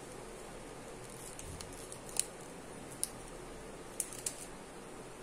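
Clear cellophane candy wrapper crinkling as it is handled: a few short, sharp crackles, the loudest about two seconds in, over a steady faint hiss.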